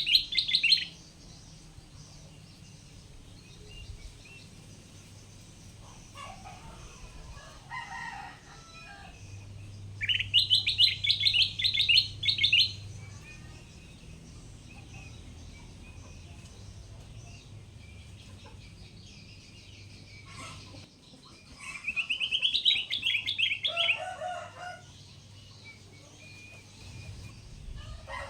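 Kutilang emas bulbul singing three loud bursts of rapid, warbling song, each one to three seconds long and roughly ten seconds apart, one ending just after the start. Fainter, lower bird calls come in between, over a steady low hum.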